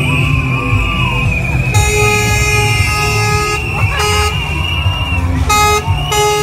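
Truck air horn sounding: one long blast of nearly two seconds, then three short toots. Loud music with a steady beat plays underneath.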